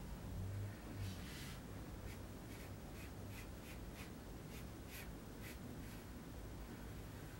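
Pencil drawing on paper: one longer scratching stroke about a second in, then a run of short strokes, about two or three a second, that die away near the end.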